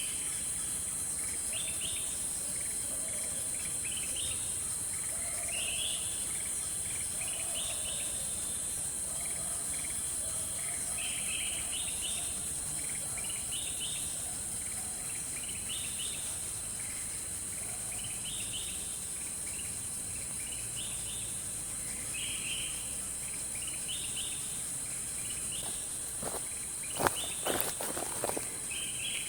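Forest ambience dominated by a steady, high-pitched insect chorus, with short chirping calls repeating every second or two. A few sharp knocks come near the end.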